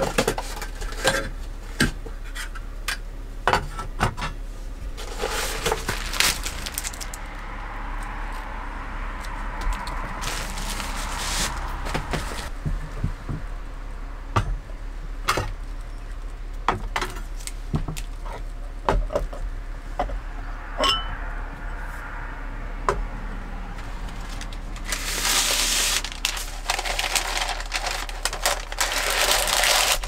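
Dishes and utensils clinking and knocking, many small sharp knocks in a row, with a few stretches of hissing noise, the longest near the end.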